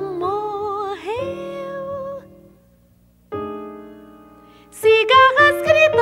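Music: a high female voice sings wordless, wavering notes over electric piano chords, breaks off for a moment about two and a half seconds in, then a held keyboard chord fades, and near the end a loud run of short sliding notes begins.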